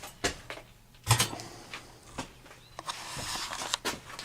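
A door being opened and gone through. There is a loud knock about a second in, then several lighter knocks and clunks, and a rustling scrape near the end.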